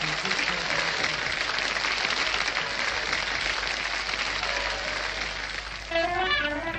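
Club audience applauding. About six seconds in, an electric slide guitar comes in with gliding notes, starting the next song.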